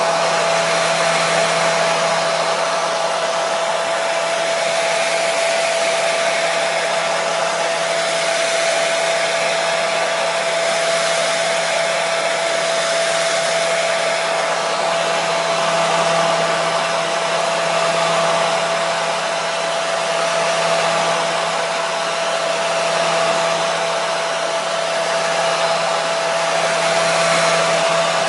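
Hair dryer running steadily, a wide airy hiss with a steady whine from the motor and fan.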